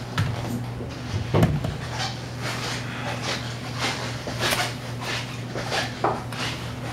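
Scattered knocks, bumps and clatter of people moving things about, over a steady low electrical hum.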